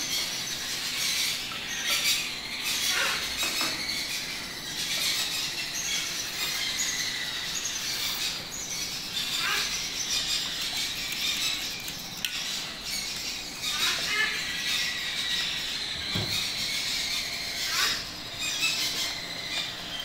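Baby macaw chicks begging for food: constant high-pitched squealing and chattering calls, with a short downward-sliding call every few seconds.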